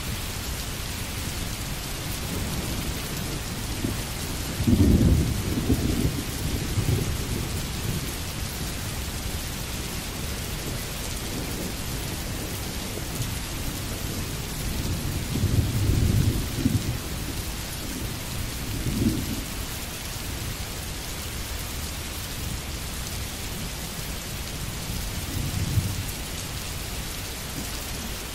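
Steady rain with several low rolls of thunder, the loudest about five seconds in and another around sixteen seconds.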